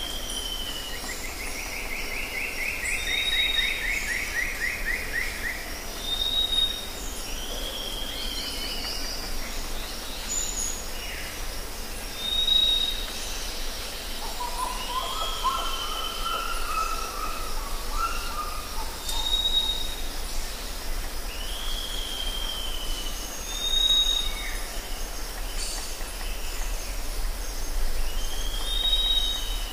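Forest ambience of several birds calling. Short high whistles and down-slurred calls repeat every few seconds, a long descending trill comes near the start, and lower calls come about halfway through, over a steady high hiss.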